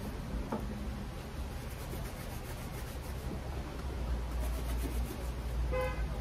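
White-gloved hands rubbing and handling leather Red Wing 214 moc-toe boots, turning them over and setting them down on the workbench, with a low steady hum underneath. A short squeak comes near the end.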